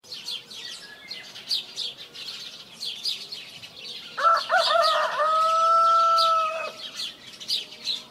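A rooster crows once, a single call lasting about two and a half seconds beginning about four seconds in. Small birds chirp rapidly throughout.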